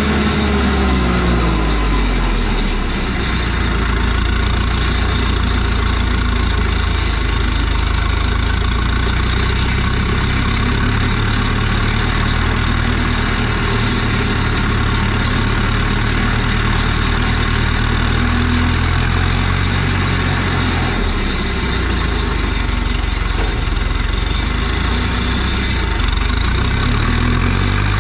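Ursus 1014's turbocharged four-cylinder diesel running under load while the tractor pulls a disc harrow across stubble. The engine note drops in pitch over the first couple of seconds, then runs steady.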